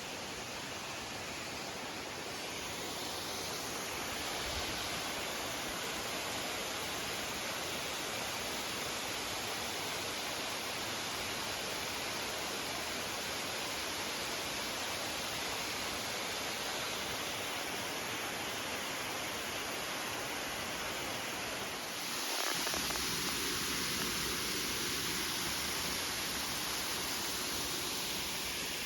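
Steady rushing hiss of a waterfall's falling water. About 22 seconds in it switches abruptly to a louder, brighter rush.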